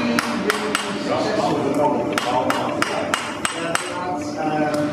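Blacksmith's hand hammer striking a red-hot iron bar on an anvil, a run of sharp blows about three a second, with brief pauses between runs.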